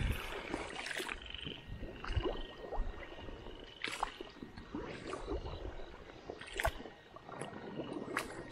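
Frogs calling in a recurring high trill, with irregular squelching footsteps through wet grass and shallow water.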